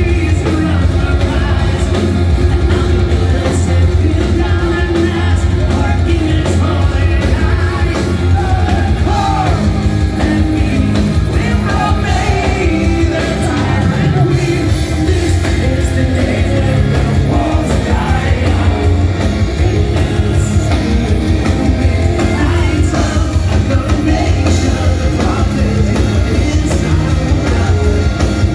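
Power metal band playing live, with drums, distorted electric guitars and keyboards under a male lead singer. The sound is loud and heavy in the low end, as heard from the crowd.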